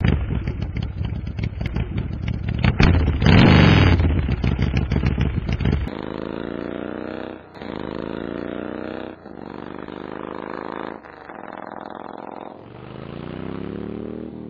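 Motorcycle engine revving loudly and roughly for about six seconds, then accelerating hard through the gears: its pitch climbs, drops at each shift and climbs again, five times over.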